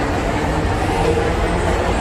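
Electric metro train running at the platform: a steady low rumble with a faint hum.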